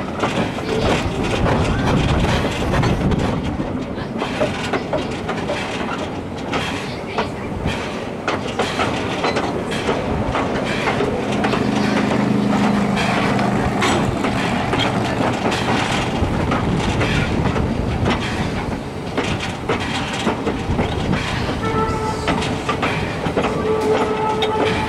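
The K 92 steam locomotive and its train running along the track, heard from the car just behind. It makes a busy, irregular clatter of clicks from the wheels and running gear, with a steady pitched tone rising out of it about halfway through and again near the end.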